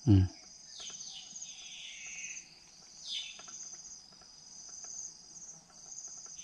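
A steady insect chorus shrilling high with a regular pulsing beat. A short, loud low sound falling in pitch comes right at the start, with a few faint chirps over the chorus.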